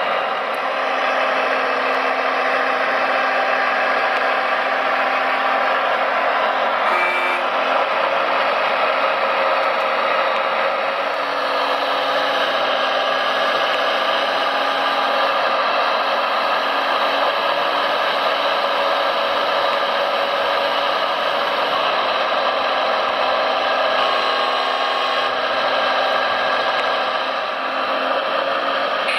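Electric motors and gearboxes of radio-controlled model construction machines whining steadily, with several tones at once and a slight rise in the higher whine about eleven seconds in.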